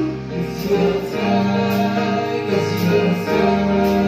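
Live rock band playing: sung vocals held on long notes over acoustic and electric guitars, through a PA.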